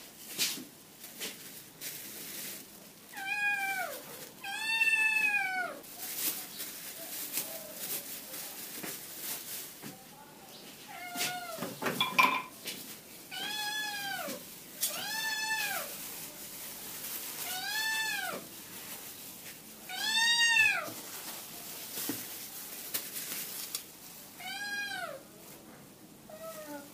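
A cat meowing again and again: about nine short meows, each rising and then falling in pitch, with pauses between them and some in quick pairs. A few light clicks and knocks fall between the meows.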